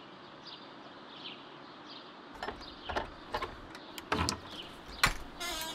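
Quiet outdoor ambience with faint bird chirps, broken by several sharp short knocks or taps in the second half and a brief pitched call near the end.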